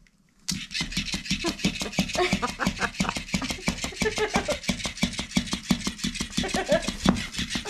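Electric flopping fish cat toy kicking on about half a second in, its motor running and its tail flapping in a fast, steady rattle of clicks.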